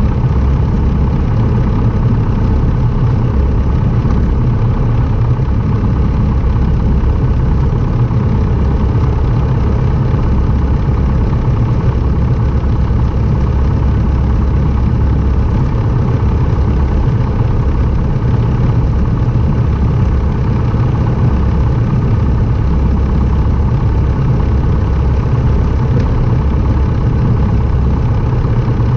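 Light aircraft's piston engine and propeller running steadily, a constant loud drone that holds one pitch throughout.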